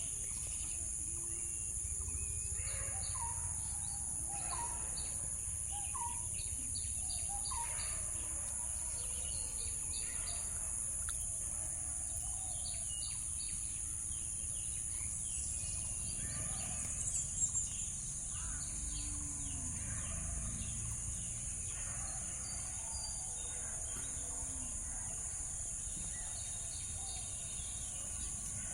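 Outdoor ambience: birds chirping in short repeated calls over a steady high-pitched hum.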